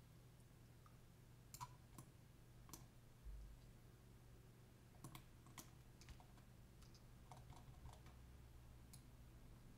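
Near silence with a low steady hum and faint computer mouse clicks, about a dozen, scattered irregularly.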